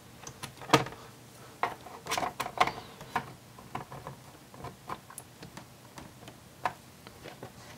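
Plastic pry tool working along the edge of an ASUS Vivobook A513EA laptop's plastic base, with irregular light clicks, taps and small snaps as the base's retaining clips are worked loose. The loudest click comes under a second in.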